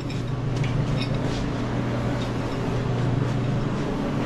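A space heater running with a steady, even hum, with a few faint light clicks over it.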